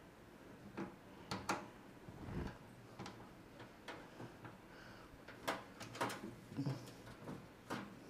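Irregular light clicks and taps of power-supply cables and their plastic connectors being handled and pushed into a motherboard's sockets, a dozen or so sharp clicks, some in quick pairs, with a duller knock about two and a half seconds in.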